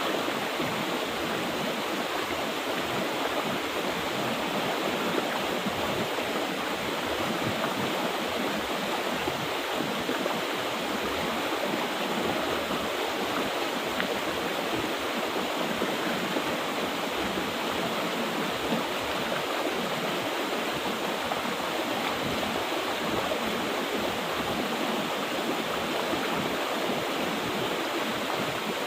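Mountain river water rushing steadily over rocks, an unbroken even flow.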